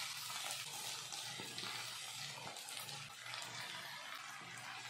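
Soft sizzling of diced potato, peanuts and tomato frying in ghee in a kadhai, as soaked sago pearls slide in from a steel bowl.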